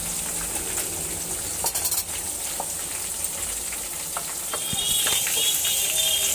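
Hot oil sizzling steadily around potato and eggplant slices shallow-frying in a steel pot, with scattered crackles and a few louder pops about two seconds in.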